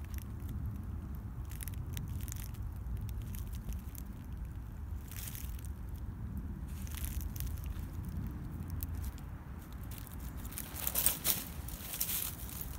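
Dry fallen leaves and twigs crackling and crunching underfoot, with scattered light crackles and a cluster of louder crunches near the end, over a steady low rumble.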